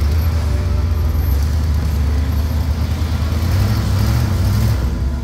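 Off-road 4x4's engine running steadily at low speed, a continuous low rumble.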